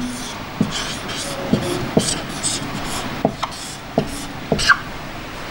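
Marker pen scratching and squeaking on a whiteboard as words are written: a quick run of short strokes, some with a brief squeak.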